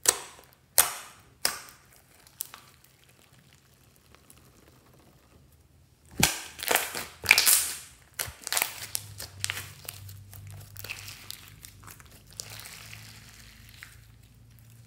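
Hands squeezing, pressing and stretching a glossy clear slime full of glitter and sequins, making sticky squelches and crackles. A few sharp squelches near the start, a quiet stretch, then a loud run of squelches from about six seconds in, easing into fainter crackling.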